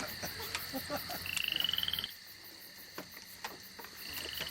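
Short, fast-pulsing croaking trills, like frog calls, heard twice, over faint backing sound that drops out about two seconds in.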